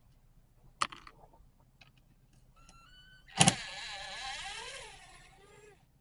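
A click, then a small power driver whines briefly. It kicks in with a sharp knock and runs for about two seconds with its pitch wavering, backing out the screws that hold the chainsaw's pull starter cover.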